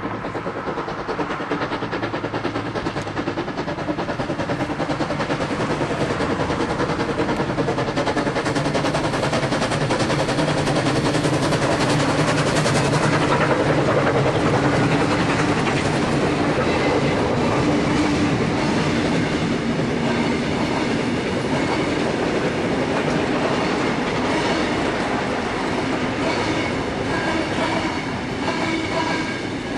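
Two BB18¼ class steam locomotives double-heading a passenger train pass close by, working hard and chuffing, loudest about halfway through as the engines go by. The carriages follow with their wheels clicking over the rail joints.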